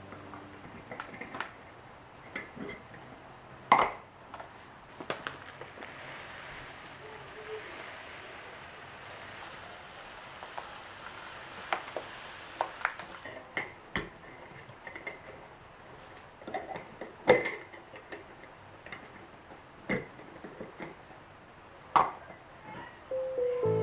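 Hard kitchen items being handled: scattered knocks, taps and clinks, a few of them much louder, over a soft hiss that swells in the middle stretch.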